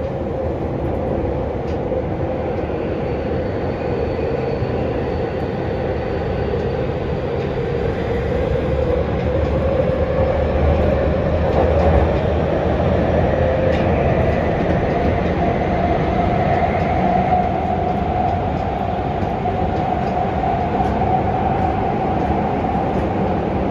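Running sound inside a Y500 series commuter train car: steady wheel-and-rail rumble with the whine of the Hitachi IGBT inverter and traction motors rising slowly in pitch, a sign of the train gathering speed.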